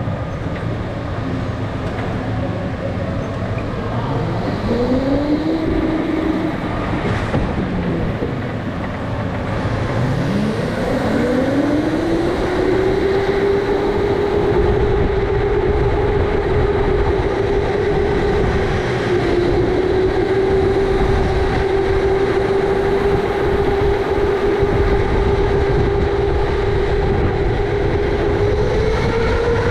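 Electric go-kart's motor whining, rising in pitch as the kart accelerates, twice in the first dozen seconds, then holding a steady high whine at speed and climbing again near the end, over a continuous low rumble.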